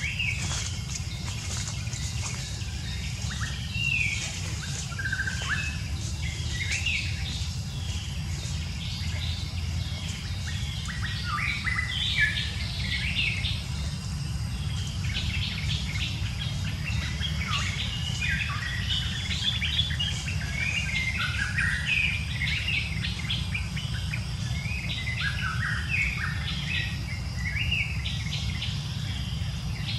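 Many small birds chirping and twittering in quick short calls, busiest from about a third of the way in, over a steady low rumble.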